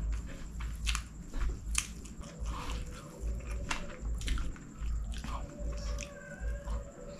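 Close-miked chewing of a mouthful of chicken fried rice, with wet mouth sounds and sharp, irregular clicks of biting and crunching.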